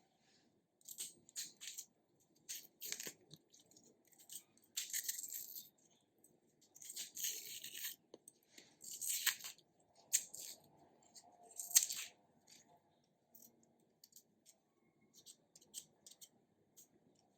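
Hand food preparation in a kitchen: irregular short scraping and rustling strokes, with one sharper, louder stroke about two-thirds of the way through.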